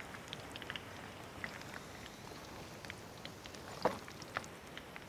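Hot deep-frying oil sizzling and crackling with many small pops, from the wok and the freshly fried rabbit just lifted out of it. One louder click sounds a little before the end.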